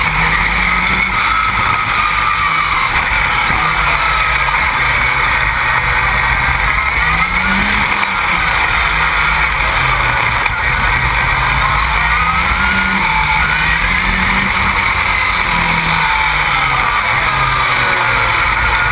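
Škoda 1.8-litre turbo engine of a four-wheel-drive rallycross buggy at racing speed, heard from on board, its revs rising and falling over and over through the lap.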